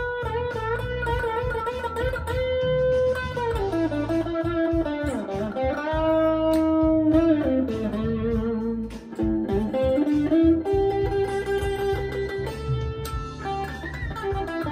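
Electric guitar playing a lead line over a backing track of bass and drums. The guitar holds long notes and slides and bends between them.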